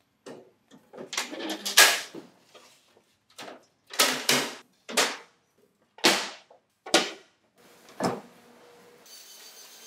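Wooden boards knocking against each other as a floor panel and side panels are set into a wooden truck body: a run of separate wood-on-wood knocks and bumps, some in quick pairs.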